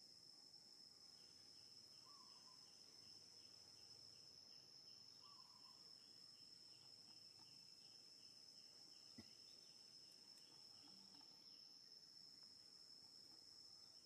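Faint insect chorus near silence: a steady high-pitched buzz with a rapid pulsing chirp over it, about three pulses a second. One faint click about nine seconds in.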